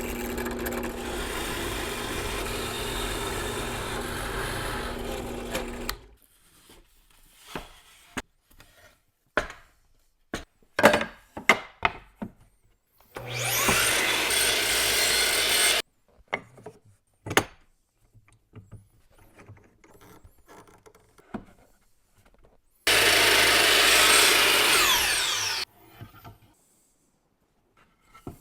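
Woodworking power tools cutting wood: a steady run of a few seconds at the start and two later cuts of about two and a half seconds each. Scattered knocks and clicks of wood and tools being handled come between them.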